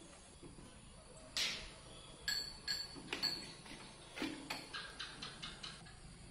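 Sharp knocks and clinks from a PVC-pipe swing frame and its hanging plastic swing as a small monkey climbs down onto the seat. The loudest knock comes about a second in, then several more with a short ringing clink, ending in a quick string of fainter ticks that die away.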